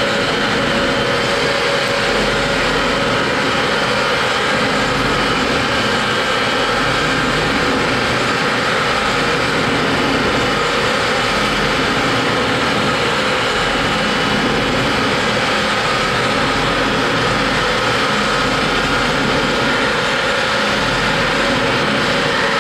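FPEC vacuum paddle blender running empty on a test run, its paddle shafts turning in the stainless steel trough: a loud, steady mechanical drone with a few faint steady tones over it.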